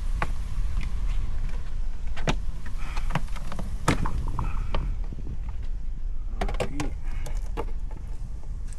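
Plastic interior trim being pried off a car pillar: scattered sharp clicks and snaps as the retaining clips let go, with a cluster of them about six to seven seconds in, over a steady low rumble.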